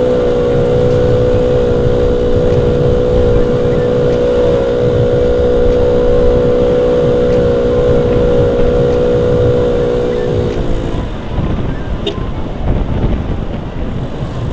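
Honda Vario scooter's single-cylinder engine running at a steady speed under wind and road rumble while riding. About 11 seconds in the engine's steady tone drops away, leaving only the rumble of wind and road.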